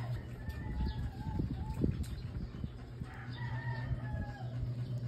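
A rooster crowing twice, each crow a drawn-out call about a second long, over a steady low hum.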